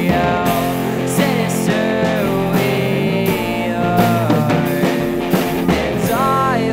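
A rock song with guitar and drums playing steadily.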